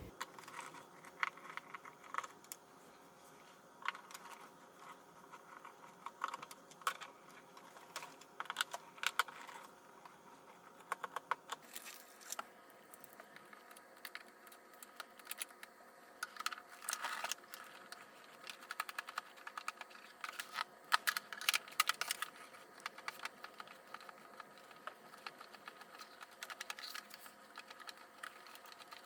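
Irregular light clicks and ticks of a screwdriver turning screws and handling the plastic housing of an upright vacuum cleaner, denser about halfway through, over a faint steady hum.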